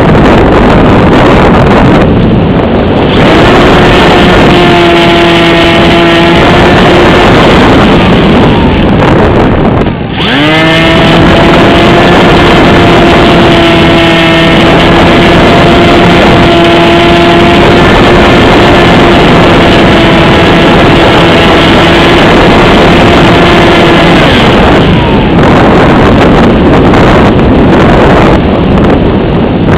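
Wind rushing over the microphone of a camera mounted on a flying AXN radio-controlled model plane, with its electric motor and propeller whining under power. The motor tone holds steady for a few seconds near the start, drops away, spools up sharply about ten seconds in, and holds until about three-quarters of the way through, leaving only the wind rush at the end.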